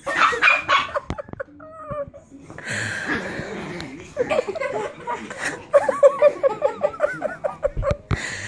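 Girls giggling and laughing, building into a quick run of short repeated laughs in the second half.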